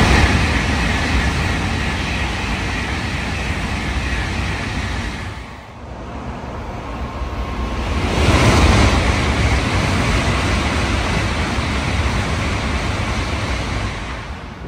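Tokaido Shinkansen bullet trains passing through a station at full speed, a loud rush of air and wheel noise. It comes in two passes: the first fades away about five and a half seconds in, and a second builds to its loudest a few seconds later.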